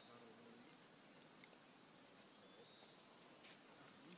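Near silence: faint outdoor ambience with a few soft, faint ticks.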